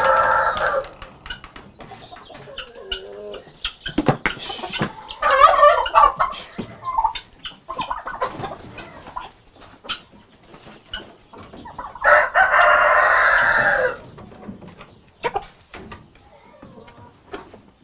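Domestic chickens clucking, with a rooster crowing; the longest crow runs about two seconds, about two-thirds of the way through. Scattered small knocks and clicks between the calls.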